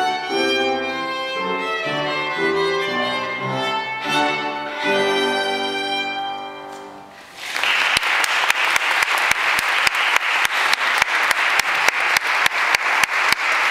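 Solo violin playing a melody that ends on a long held note, which dies away a little past the middle. About a second later, applause starts, with sharp hand claps about four a second standing out from it.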